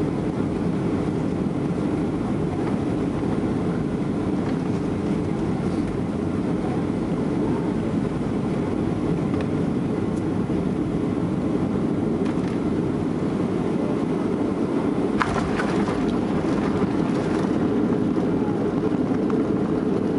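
Inside the cabin of a Boeing 737-800 landing: a steady low rush of the CFM56 engines and airflow. About fifteen seconds in come a few sharp knocks as the wheels meet the runway, and the noise grows a little louder near the end.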